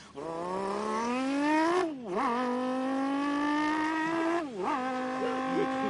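A person's voice imitating a race car accelerating through the gears. The engine-like drone climbs in pitch, drops back twice like upshifts, then holds steady.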